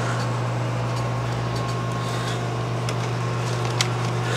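HP RP5800 desktop PC running after power-on, its fans giving a steady low hum, with a few faint clicks and one sharper click near the end.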